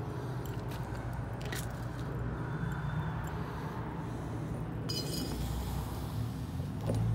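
Steady low drone of a metal-melting furnace running, with a few light metallic clinks of tongs against a steel ingot mold.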